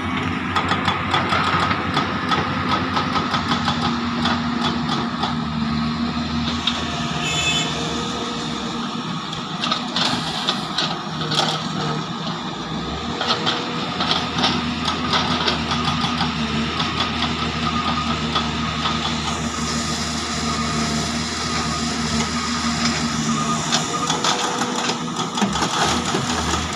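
Large hydraulic excavators' diesel engines running steadily under load while digging and loading, with rock knocking and clattering as it is scooped and dumped.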